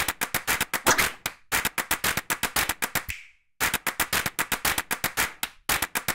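A rapid run of short, dry tapping clicks, about eight a second, with a brief break about three seconds in. It is a sound effect ticking off each item as it pops into place one by one.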